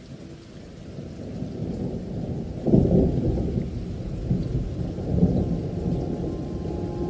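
Thunder and rain ambience: a low rushing noise that builds up, with the loudest roll of thunder about three seconds in and smaller rolls after it.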